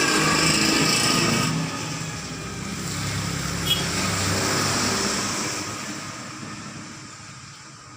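Motor vehicles passing by, their engine and tyre noise swelling twice and then fading away, with a brief click partway through.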